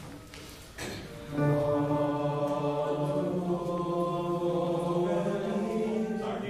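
Boys' choir singing a sustained chord, entering about a second in, with the voices holding steady notes; the lowest part steps up to a higher pitch about halfway through.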